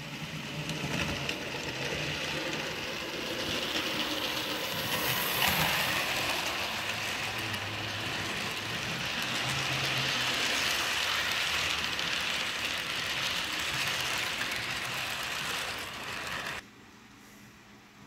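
Model Hudson steam locomotive and a string of passenger cars rolling past on the track, wheels clattering with many fine clicks over a steady rolling noise. The sound cuts off abruptly near the end.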